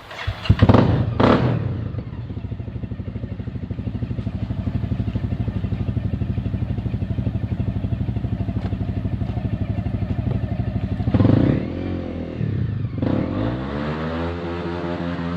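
Off-road motorcycle engine catching with two loud bursts, then idling with an even pulse. It is revved up and back down twice near the end, settling at a faster idle. The riders suspect the clutch is slipping.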